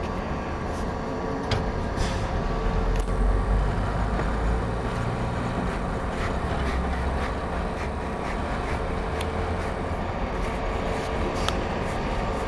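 Streetcar moving slowly on snow-covered rails: a steady low rumble, heaviest in the middle stretch, with a faint steady hum and a few sharp clicks scattered through it.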